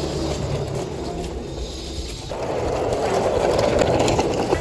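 Wooden toy pickup's wheels rolling over rough, cracked concrete: a grainy rumbling clatter that gets louder about two seconds in.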